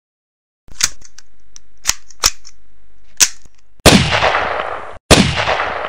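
Gunshot sound effects: four sharp clicks, then two loud shots about a second and a quarter apart, each with a long fading tail.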